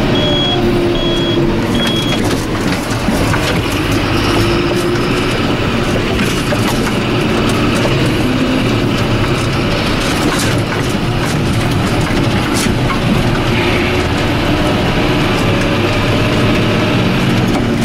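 John Deere 7530 tractor's six-cylinder diesel running steadily, with frequent knocks and rattles. A high, evenly spaced beeping sounds for about the first two seconds, then stops.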